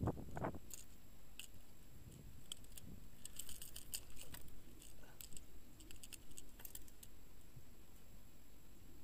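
Light metallic clicks and rattles as pliers work a lure's hooks free from a pike held in a landing net, in scattered quick runs that are thickest a few seconds in. A short handling scuff comes right at the start.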